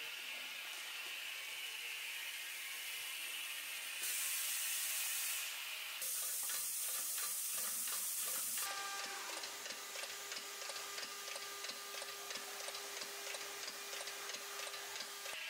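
Pneumatic drum unloading station with piston pump running: steady compressed-air hiss, much louder for a few seconds from about four seconds in, then fast ticking over a steady hum from about nine seconds in.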